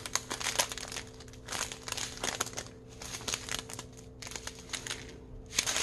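Small clear plastic bags of diamond painting drills crinkling in irregular rustles as a strip of them is handled and turned over by hand.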